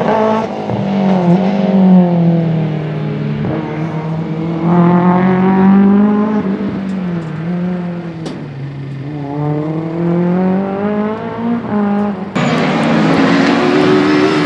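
Rally car engine revving hard. Its pitch climbs and drops several times as the car accelerates through the gears and lifts off, with a single sharp pop about eight seconds in. Near the end the sound switches abruptly to a harsher, noisier engine note.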